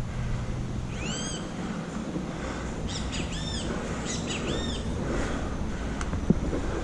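A bird calling: short high squeaky calls, each rising then falling, repeated about five times at uneven gaps. Over a low steady background rumble, with one sharp click near the end.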